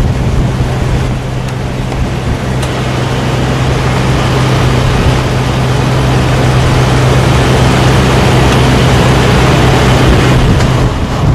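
Mack heavy-haulage prime mover's diesel engine running steadily with a low hum as it pulls a heavy oversize load slowly, growing gradually louder as it approaches, mixed with wind rush on the microphone.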